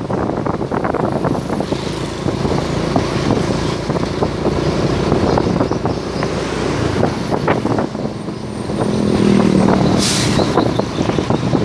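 Heavy road vehicle running past, with engine noise and a low steady tone that swells about nine seconds in. A short sharp hiss comes about ten seconds in.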